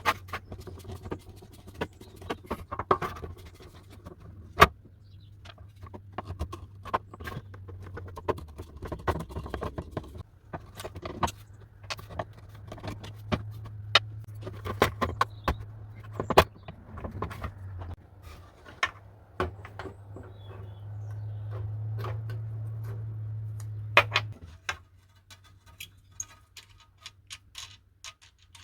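Irregular metal clicks, scrapes and clinks of a screwdriver working the screws and nuts out of an old handsaw's handle, with small metal parts knocking together. A steady low hum sits underneath, and a steadier scraping runs for a few seconds near the end.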